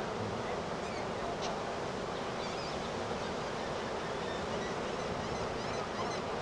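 Storm-driven ocean surf breaking on the beach: a steady roar of waves rolling in and breaking, with faint high chirps over it.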